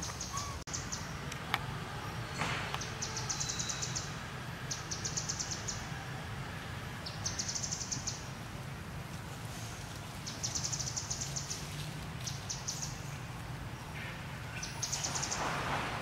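Forest ambience: a high, fast-ticking trill repeats in bursts of about a second, every couple of seconds, over a low steady hum. A short burst of noise comes near the end.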